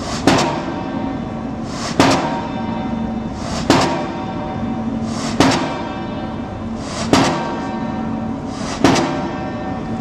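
Diesel pile hammer driving a pile: six heavy blows, evenly spaced about every second and three quarters, with a steady hum between them.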